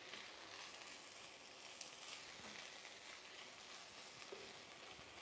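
Sliced onions and bell peppers sizzling faintly in a pan as they sweat, stirred with a spatula, with a few light scrapes and taps.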